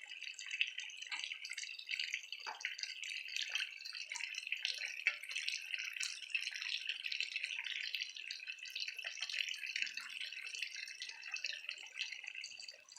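Pump-fed water falling steadily over a small concrete dome into a fish pond, a continuous trickle full of small drips and splashes, aerating the pond water.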